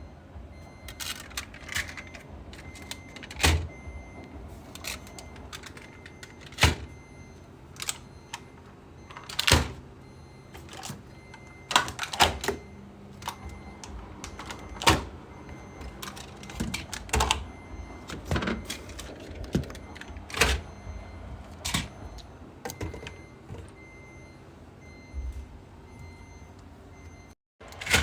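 Irregular knocks, clicks and clatters of household items being handled and set down, several of them sharp and loud, over a low steady background.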